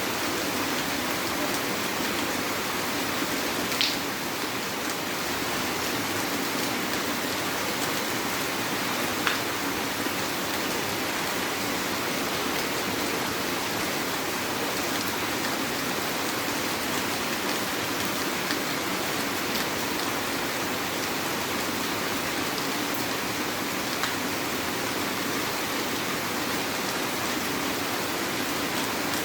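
Heavy rain falling steadily, with a few single sharp drops or taps standing out, the loudest about four and nine seconds in.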